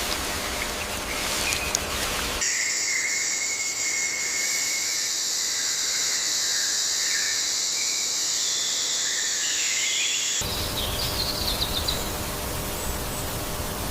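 Tropical forest ambience. From about two seconds in to about ten seconds in, a steady high insect drone dominates, with warbling calls below it. Before and after that stretch there is a plainer hiss of background with a few brief chirps.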